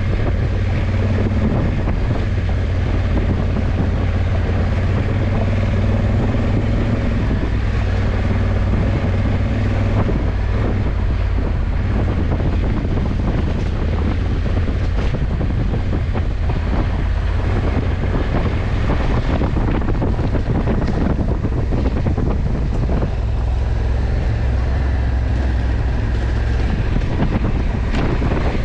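Honda CRF1100 Africa Twin's parallel-twin engine running at a steady cruise, buried under heavy wind rush on the microphone.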